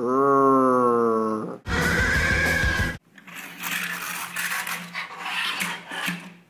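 A horse-like whinny, one call falling in pitch, then a second, shorter call; after that a rough, uneven noise.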